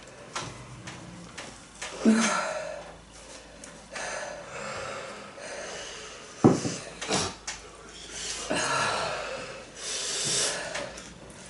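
People breathing hard and wheezing, drawing long hissing breaths in and out through mouths burning from hot chili peppers. Two short knocks come about halfway through.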